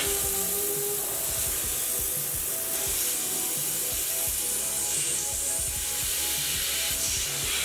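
A CNC mill's spindle drives a small chamfering tool into a metal idler wheel, with a steady hiss of coolant spray over the cutting.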